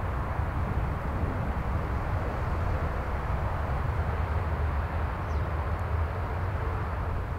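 Steady wind, with a low rumble of gusts buffeting the microphone.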